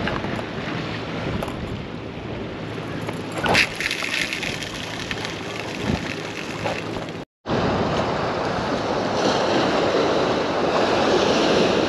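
Surf washing against the jetty with wind buffeting the microphone. There is a short louder rush about a third of the way in, and the sound drops out completely for a moment just past halfway.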